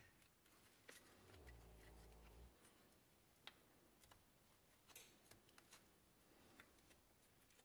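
Near silence with faint, scattered clicks and taps as gloved hands handle small painted metal toy parts.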